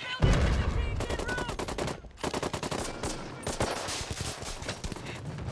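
Battle gunfire: bursts of rapid machine-gun fire mixed with single rifle shots, with a heavy low blast just after the start.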